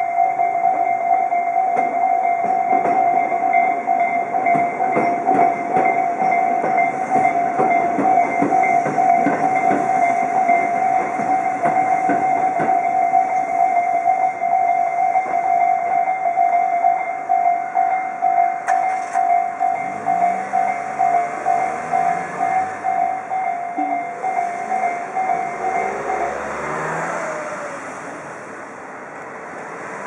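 Electronic warning bells of a Japanese railway level crossing ringing in rapid pulses, the crossing's four alarms slightly out of step with one another, while a train clatters across in the first half. The bells cut off about 26 seconds in, and road traffic moves off.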